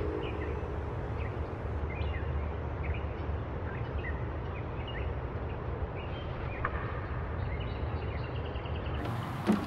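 Birds chirping in short, scattered calls over a steady low outdoor rumble. Near the end the background changes and there is a single short thump.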